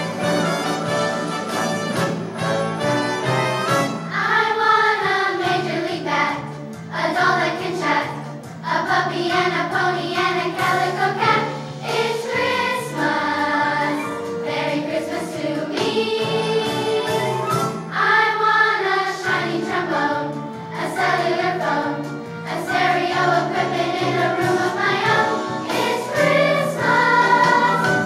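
A children's choir singing a Christmas song over a recorded-style instrumental accompaniment with a steady, repeating bass line. The singing comes in about four seconds in, after a short instrumental lead-in.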